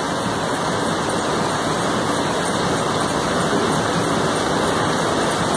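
A steady, even rushing noise with no distinct clicks or strokes in it.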